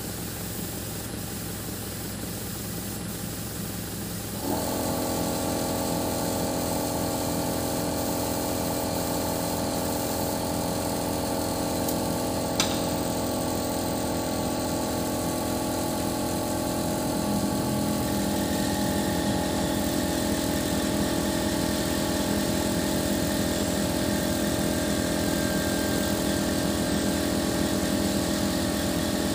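Truck-mounted crane's engine running steadily, then stepping up about four seconds in to a louder running with a steady whine as the crane's hydraulics are worked. A single sharp click near the middle.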